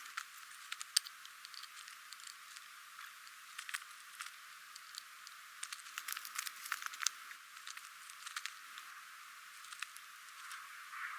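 A hiker's footsteps on a woodland trail: irregular crackling and rustling steps over a faint steady hiss, sounding thin with no low end.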